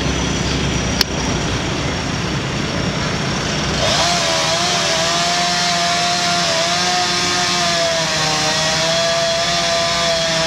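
Over a low idling engine rumble, a chainsaw comes up to speed about four seconds in and runs at a high, slightly wavering pitch as it cuts into a tree limb. There is a single sharp click about a second in.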